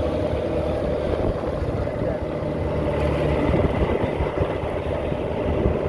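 Fishing boat's engine running steadily while the boat is under way on the ocean.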